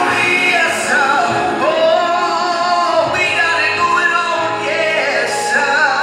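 A man singing a gospel song into a microphone, the voice sliding and bending through long held notes over backing music.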